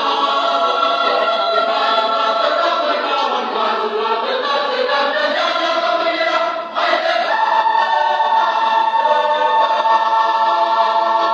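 Church choir singing a cappella in several parts. About two-thirds of the way through they pause briefly, then hold a long sustained chord.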